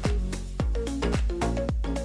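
Background music with a steady electronic beat: a kick drum about twice a second under a short repeating melody.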